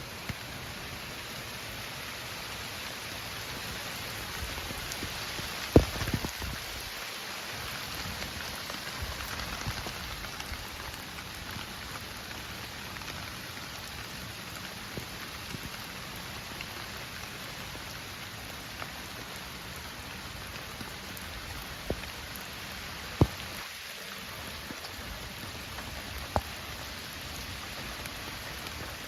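Heavy rain falling steadily, with a few sharp louder taps of drops striking close by, the loudest about six seconds in and twice more a little before the end.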